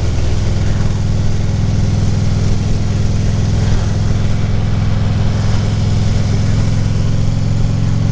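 Harley-Davidson Ultra Limited's V-twin engine running steadily, with wind noise rushing over the helmet microphone.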